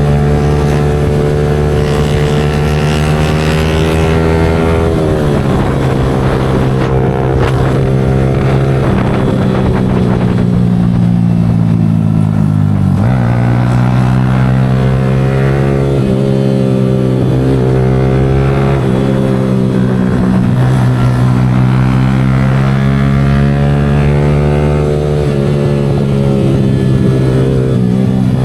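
Yamaha R15 V4's single-cylinder engine breathing through an aftermarket Leo Vince exhaust, running at fairly steady revs. The pitch dips and climbs back twice, about five seconds in and again around the middle.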